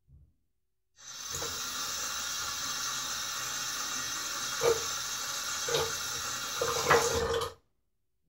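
Bathroom sink tap running for about six seconds, starting a second in and cutting off suddenly, with three brief louder splashes of water along the way.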